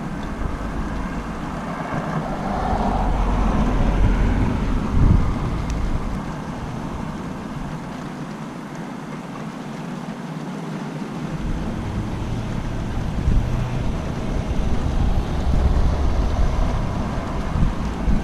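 Thunder rolling after a nearby lightning flash: a deep rumble that builds for several seconds, peaks with a sharper crack about five seconds in, then fades. A second low rumble rises about halfway through and continues to the end.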